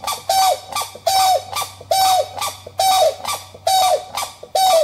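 An animal calling over and over, six short harsh calls about a second apart, each holding one pitch and dropping at its end.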